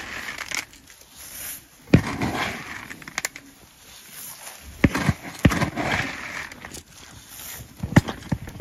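Hay and straw rustling as it is handled and walked on, broken by a few sharp knocks against wood, the loudest about two seconds in.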